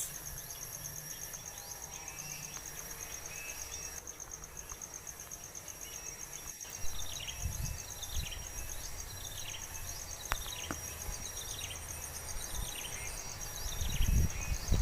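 A cricket-like insect trills steadily at a high pitch. Through the middle, a series of short, falling bird chirps repeats for several seconds. Low thumps come near the end.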